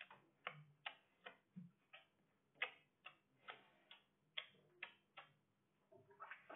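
Faint, wet mouth smacks of two people kissing: a dozen or so short clicks at uneven intervals, about two a second.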